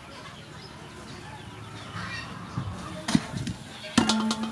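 Stainless-steel kitchenware knocked: a light knock about three seconds in, then a sharper metallic clank about four seconds in that rings on with a steady tone.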